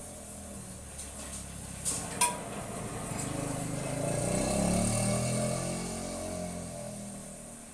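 A sharp metallic clink with a brief ring about two seconds in, after a few lighter clicks. Then a motor hum swells, peaks and fades over about four seconds.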